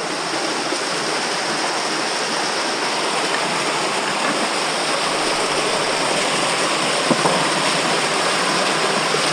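Steady rush of flowing creek water, with one brief knock about seven seconds in.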